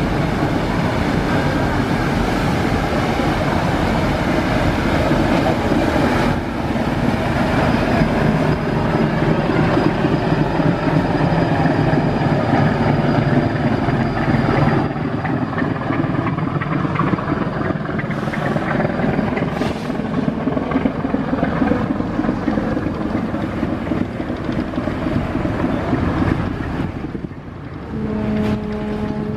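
Large passenger river launch passing close by: its diesel engines running steadily under the rush of water along the hull. A steady low tone with overtones starts near the end.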